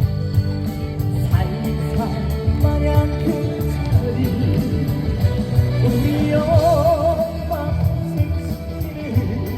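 Trot music playing over the sound system, a steady beat with a melody line that swells into a wide vibrato about two-thirds of the way through.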